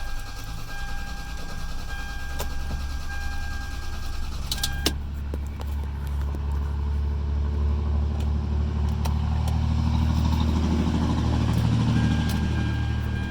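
2003 Toyota Sequoia's 4.7-litre V8 being cranked by its starter motor for a long stretch with a steady rhythmic chug, turning over but not catching. This is the no-start fault after a valve cover gasket and ignition switch repair. It grows louder toward the end, then stops.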